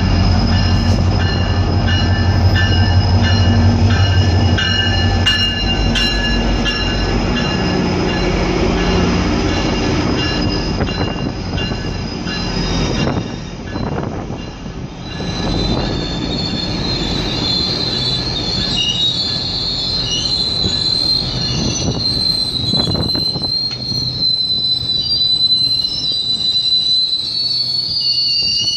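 GO Transit commuter train arriving: the diesel locomotive rumbles past at first, then the bilevel coaches roll by and their wheels set up a high, wavering squeal from about halfway through.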